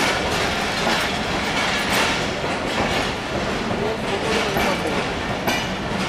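Pakistan Railways passenger coaches rolling past at a station platform as the train pulls out, their wheels clacking over the rail joints in a steady rumble.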